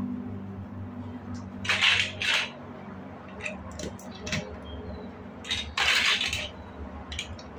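Plastic building-block pieces being handled: scattered light clicks, with two louder short rattling scrapes, about two seconds in and again about six seconds in.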